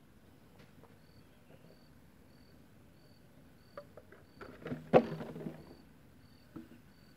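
An insect chirping steadily, a short high chirp nearly twice a second. About four seconds in comes a cluster of knocks and clattering, loudest at a sharp knock about five seconds in, with one more knock shortly after.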